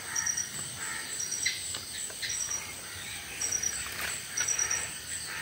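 Outdoor ambience: insects chirping in short trills that repeat at even spacing, with bird calls mixed in.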